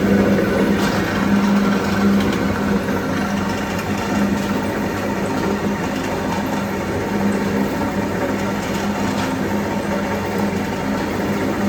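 Continuous rotary-drum carbonization furnace running: a steady machine hum with a noisy rush over it, the hum swelling and easing slightly every second or so.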